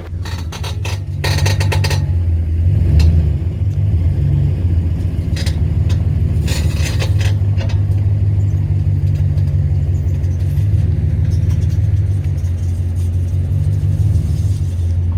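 A worn front wheel bearing on a 2015 Ram 1500 truck, rolling at low speed, makes a hideous grinding sound: a steady low rumble, with scraping clicks about a second in and again around six to seven seconds.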